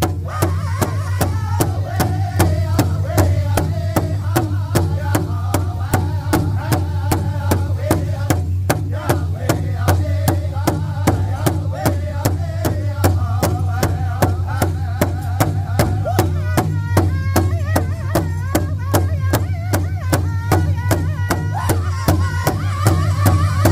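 Powwow drum group singing together over a steady beat on a big powwow drum, about three beats a second. The voices climb higher about two-thirds of the way through.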